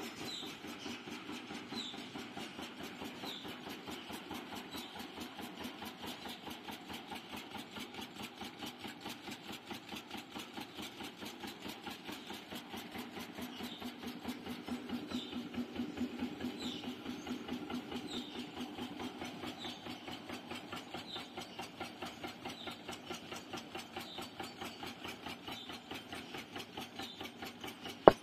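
Expanded metal mesh machine running: its flywheel-driven cutter head strokes through sheet metal in a fast, even rhythm, with a faint high squeak about every second and a half. A sharp, loud knock comes right at the end.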